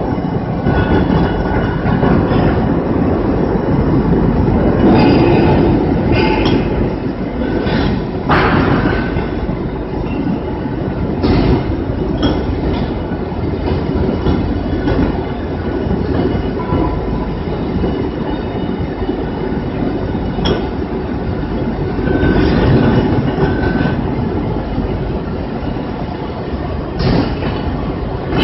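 Two-axis fettling grinder running, its abrasive wheel grinding a metal casting with a loud, continuous rumbling noise and occasional sharp clinks.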